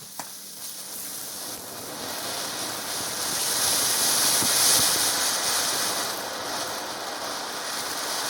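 Clown-shaped novelty firework burning: a steady rushing hiss of spraying sparks that builds over the first few seconds and peaks about halfway through.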